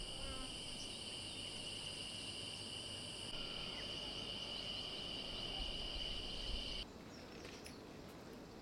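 Steady shrill insect chorus, several continuous high tones, with a few faint bird chirps; it cuts off suddenly about seven seconds in, leaving a quieter background with a few soft clicks.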